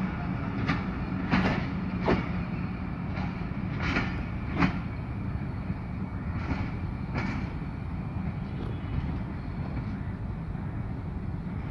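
Passenger coaches' wheels clacking over rail joints as the train rolls slowly into the station, over a steady low rumble. The clacks come in pairs and fade after about seven seconds as the train moves away.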